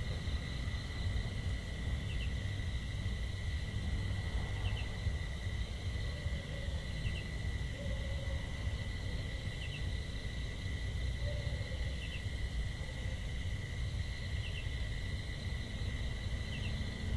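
Outdoor ambience: a steady high insect drone with a short double chirp repeating about every two and a half seconds, over a low rumble.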